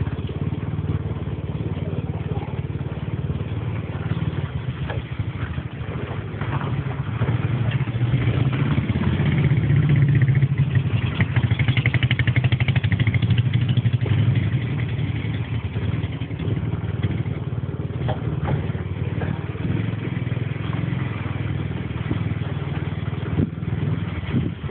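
A motor vehicle's engine running steadily while driving along, getting louder for several seconds around the middle, with a few short knocks.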